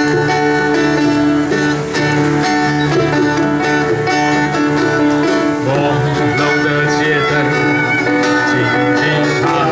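Instrumental music led by plucked strings over held, sustained chords at a steady level.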